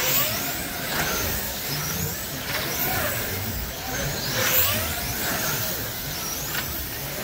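Electric motors of wing slot cars whining as they lap the banked track, the pitch rising and falling about once a second as cars pass, over a low steady hum.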